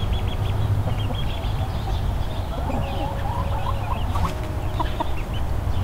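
A flock of chickens clucking, with many short high peeps from young chicks among them, over a steady low rumble.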